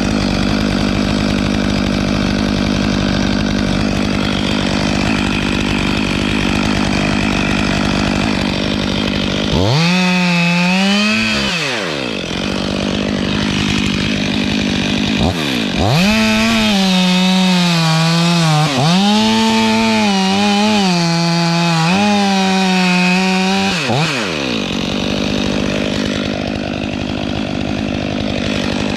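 Stihl 500i two-stroke chainsaw running at high revs while cutting wood. The engine pitch surges and drops several times between about 10 and 24 seconds in as the throttle and load change.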